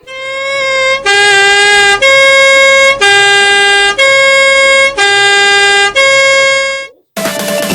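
Two-tone hi-lo siren alternating between two steady, buzzy pitches about once a second, seven tones in all, cutting off suddenly near the end. Music starts just after it.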